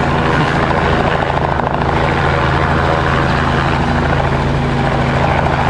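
Remotely piloted agricultural spray helicopter running, a steady loud rotor and engine drone.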